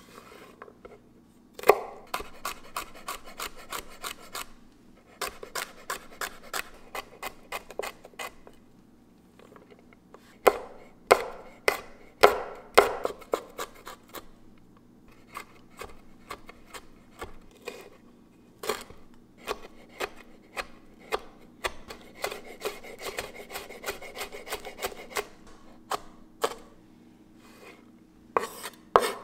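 Chef's knife chopping vegetables on a wooden cutting board: runs of quick knocks, several a second, broken by short pauses.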